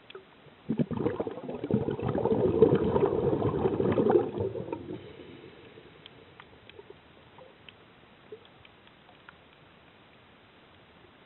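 Scuba regulator exhalation heard underwater: one gurgling rush of bubbles starting about a second in and lasting some four seconds, then fading. Faint scattered clicks follow in the quiet.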